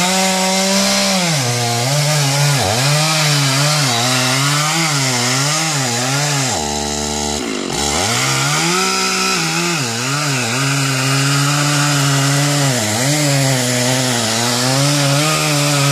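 Chainsaw running hard, cutting wood, its engine pitch dipping and recovering again and again as the chain loads up in the cut. About seven seconds in the revs briefly drop, then climb back up.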